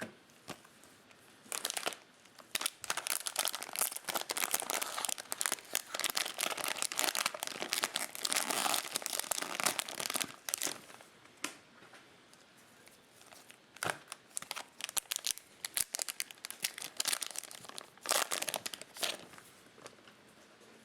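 Plastic trading-card pack wrapper being torn open and crinkled by hand: dense crackling for most of the first half, then scattered crinkles, with another short burst near the end.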